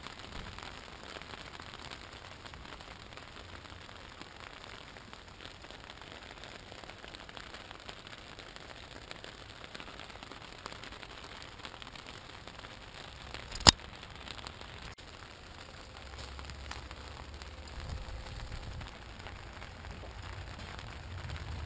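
Rain falling on an oiled bed-sheet tarp, heard from underneath, a steady hiss scattered with small drop ticks. A single sharp tap about two-thirds of the way through is the loudest sound, and a low rumble rises near the end.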